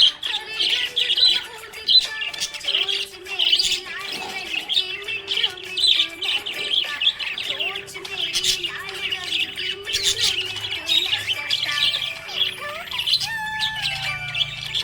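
Budgerigars chirping in a steady stream of quick, high chirps, with music playing underneath.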